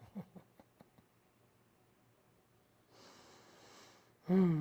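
A woman breathing: a few small mouth clicks in the first second, a breath about three seconds in, then a louder voiced sigh that falls in pitch near the end.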